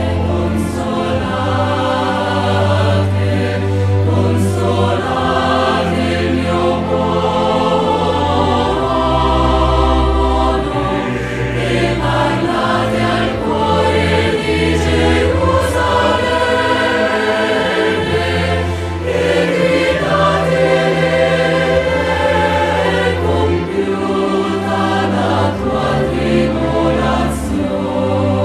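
Sacred choral music: a choir singing slow, sustained lines over long held low notes that change every few seconds.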